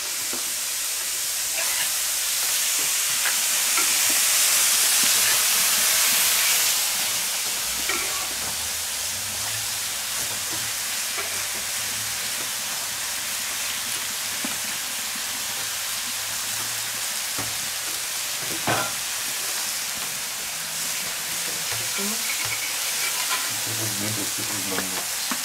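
Peach halves sizzling on a hot steel fire-plate griddle: a steady frying hiss that swells louder for a few seconds about three seconds in, with a few faint clicks.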